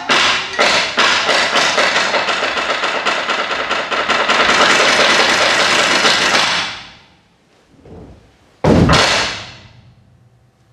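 Kabuki tsuke, wooden clappers beaten on a wooden board, striking faster and faster into a rapid roll that stops about seven seconds in, followed by one loud single strike nearly two seconds later that rings out; the pattern marks the dancer's mie pose.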